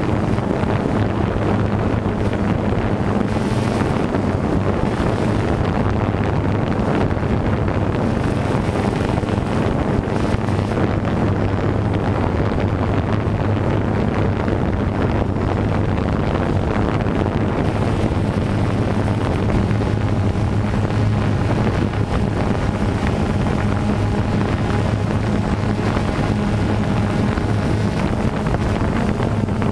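DJI Phantom 2 quadcopter's motors and propellers humming steadily at one low pitch, picked up by the GoPro mounted on the drone, with wind buffeting the microphone.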